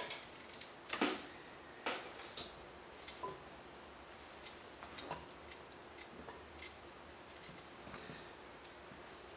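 Knife cutting coconut meat into small chunks: a string of faint, irregular clicks and knocks.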